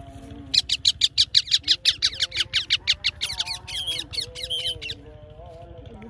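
Yellow ringneck parakeets screeching a rapid run of harsh, high calls, about six a second, each dropping in pitch. The calls start about half a second in and stop about a second before the end.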